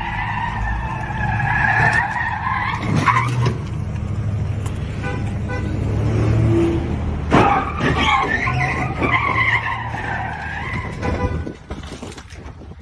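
Car tyres screeching in long, wavering squeals as cars spin donuts and burnouts, with engine noise underneath. The squealing comes in two stretches, the first fading about 3 s in and the second from about 7.5 to 11 s.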